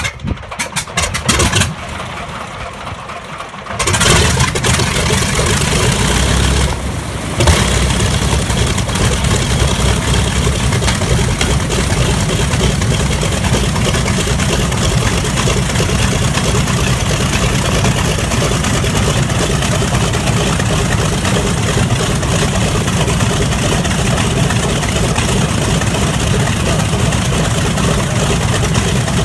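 B-25 Mitchell's Wright R-2600 twin-row radial engine starting: a choppy stretch as the propeller is turned over, then the engine catches with a sudden jump in loudness about four seconds in, dips briefly a few seconds later, and settles into a steady idle.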